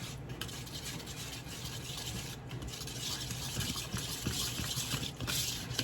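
A powdered-sugar and coconut-milk glaze being mixed in a bowl as the milk is slowly added: a steady soft scratching with faint taps.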